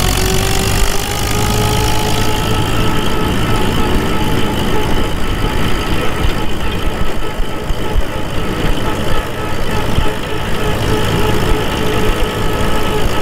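1942 Farmall H's four-cylinder engine running steadily as the tractor drives in top gear, with a high gear whine from the rear end over the engine. The whine rises a little in pitch in the first couple of seconds, then holds steady. It comes from freshly reset gear sets that have not yet worn in.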